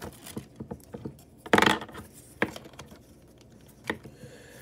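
Hard plastic capture-gear pieces clicking and knocking against a plastic Stegosaurus toy figure as they are pushed and fitted onto it, with one louder, brief rattle about a second and a half in.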